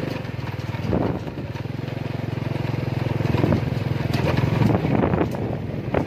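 Small motorcycle engine running steadily while riding along a dirt track, getting a little louder about halfway through.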